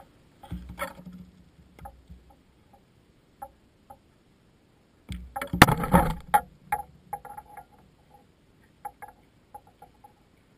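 A few soft crunches on gravel about half a second in. About five seconds in comes the loudest sound: a thrown steel pétanque boule landing on the gravel terrain with a crunching thud, two sharp knocks as it bounces and skids, then a rumble as it rolls to a stop. Small scattered ticks follow.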